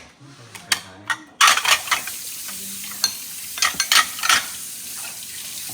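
Kitchen dishes and utensils clattering and clinking, with a steady hiss that starts suddenly about a second and a half in.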